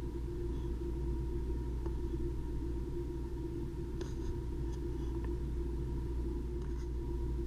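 Ear microsuction unit running with a steady low hum and a faint high tone. A few faint clicks come about four to five seconds in and again near the end, as the suction tip works on the wax.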